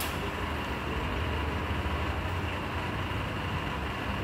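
Steady low hum and hiss of background machine noise, with one sharp click of a lighter being struck right at the start.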